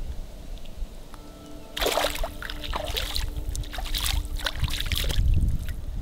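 Water splashing and sloshing as hands scoop and rinse in shallow creek water, starting about two seconds in and going on in quick bursts, over a low rumble.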